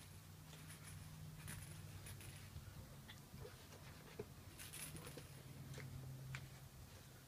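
Puppies moving about: faint, scattered little clicks and scuffles over a low steady hum.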